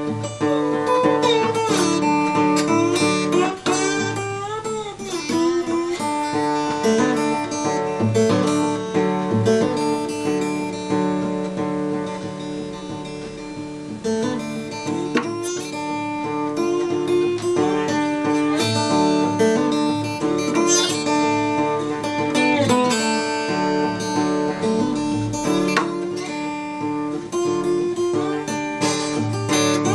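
Acoustic guitar played in bottleneck slide blues style: picked notes over steady ringing bass strings, with the slide gliding up and down between pitches.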